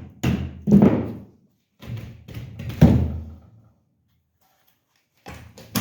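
Hammer blows on wood: about four heavy strikes in the first three seconds, a pause, then more strikes near the end.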